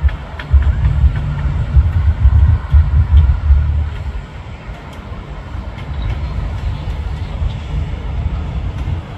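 CSX diesel freight locomotive running past, pulling a string of covered hopper cars, with a heavy low rumble that is loudest for the first few seconds and then eases.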